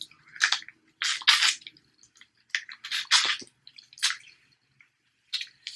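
Close-miked eating of snow crab legs: a string of short, wet slurping and squishing sounds as the crab meat is sucked and chewed, about seven separate bursts with brief pauses between.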